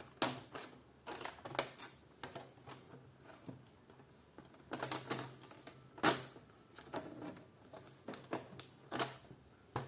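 Plastic screen bezel of an ASUS X555L laptop being pried off with a tool, its latches snapping loose in a scatter of sharp clicks at irregular intervals, the loudest about six seconds in.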